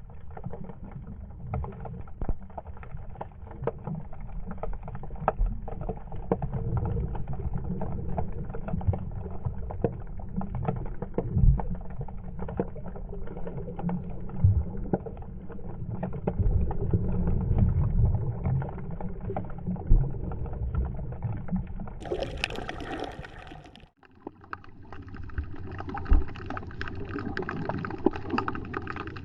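Muffled water sloshing and rumbling around a kayak, with irregular knocks. About 22 seconds in, a brighter hissing splash lasts a couple of seconds, then the sound cuts off abruptly and a lighter, thinner water noise follows.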